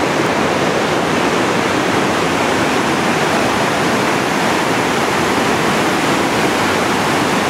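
Whitewater rapid rushing over and around boulders: a steady, unbroken rush of river water.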